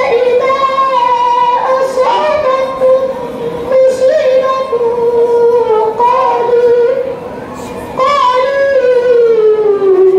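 A child reciting the Quran in a melodic chanting style, unaccompanied, holding long high notes with ornamented turns, with a short pause for breath about seven seconds in.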